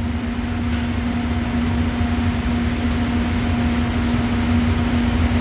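Steady drone of running shop machinery: a constant low rumble with an even hum tone and a hiss of air over it.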